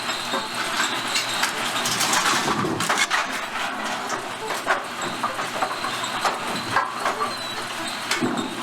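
Brunswick A2 pinsetter running, a steady mechanical rumble with irregular clanks and knocks through it.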